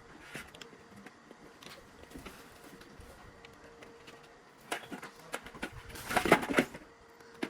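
Parts being handled on a fan heater assembly line: scattered light clicks and knocks over a faint steady hum. A quick run of loud clattering comes about six seconds in.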